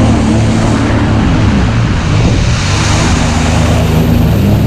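Sea-Doo personal watercraft engine running steadily under way, with rushing wind and water-spray noise that swells in the middle. The engine runs normally just after the hull struck a rock.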